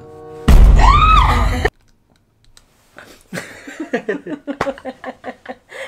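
A very loud shriek of disgust, its pitch rising then falling, loud enough to sound distorted. After a short pause comes choppy laughter.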